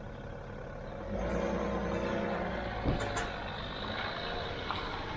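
An SUV's engine running as it drives slowly past towing a boat trailer, building up and then holding steady, with a sharp knock about three seconds in.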